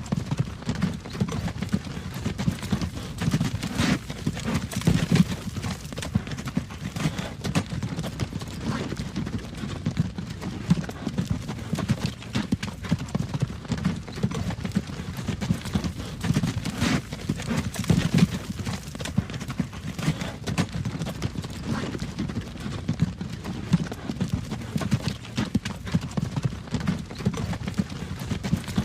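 Horse's hooves clip-clopping steadily on a road as it pulls a wagon, with occasional sharper clacks standing out above the rhythm.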